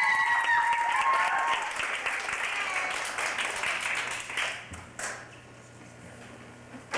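A small audience clapping, with a few drawn-out cheers over the first second or so; the clapping dies away about four and a half seconds in, followed by a single knock.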